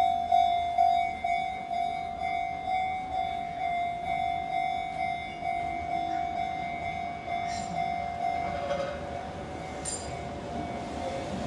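Level-crossing warning bell ringing in a fast, even beat, about two and a half strokes a second, growing fainter. A Keihan 600 series train comes in underneath it, its running noise rising over the last few seconds.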